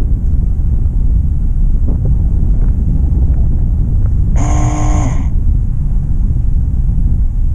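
Vehicle driving slowly along a paved road: a steady low rumble of engine and road noise. A little past halfway comes a brief, steady buzzy tone lasting about a second.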